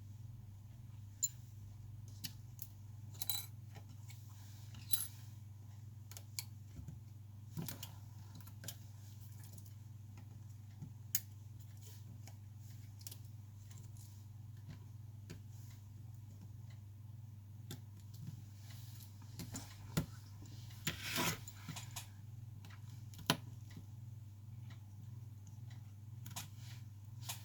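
Light clicks and taps of small repair tools and phone parts being handled, scattered irregularly over a steady low hum, with a busier cluster of clicks near the end.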